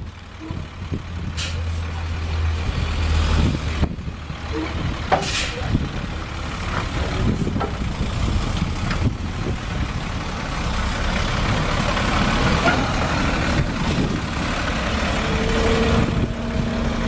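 International DT466E 7.6-litre inline-six diesel engine in a 2000 International 4800 truck running, getting gradually louder, with two short hisses of air about four seconds apart.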